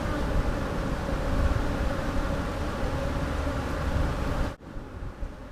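Honey bees buzzing around an open hive, with wind rumbling on the microphone. About four and a half seconds in, the sound drops suddenly and goes on more quietly.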